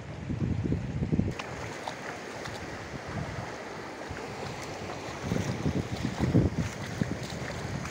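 Floodwater rushing in a steady current across a farm field, with wind buffeting the phone's microphone in low gusts at the start and again later on.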